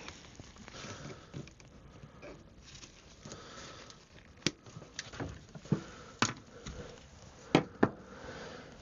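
Small handling noises: light rustling with scattered sharp clicks and taps, several louder ones in the second half, as electrical wires and blue crimp connectors are sorted and fitted by hand.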